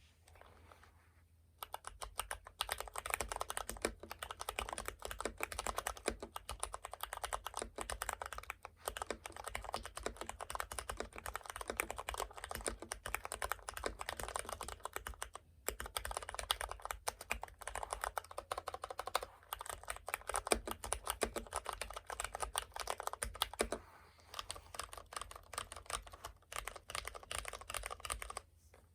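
Typing on a computer keyboard: a continuous run of fast key clicks and thocks, broken by a short pause about halfway through.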